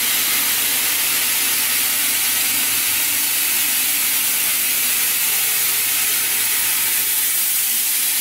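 Steady hiss of an FDY yarn spinning and drawing machine running, with a low hum underneath.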